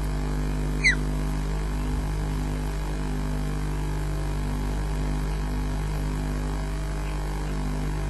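Osprey giving one short, sharp chirp that drops in pitch, about a second in, over a steady electrical hum.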